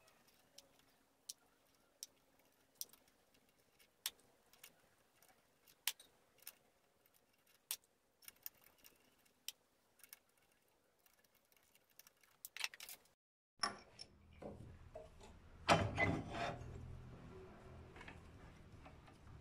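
Scattered sharp metal clicks and ticks as a wood lathe's chuck is handled and its jaws are worked by hand. After a break about two-thirds of the way through, there are louder handling knocks with a low rumble.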